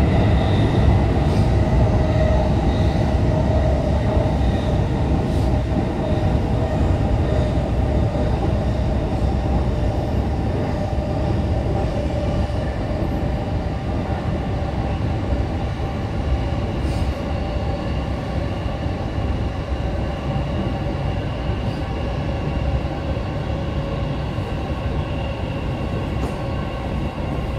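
Electric commuter train running between stations, heard from inside the carriage: a steady noise of wheels on the rails with a faint whine held above it, easing off slightly.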